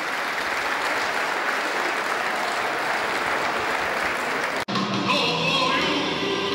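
Stadium crowd applauding and clapping in an even wash; about two-thirds of the way through it cuts off abruptly and music takes over.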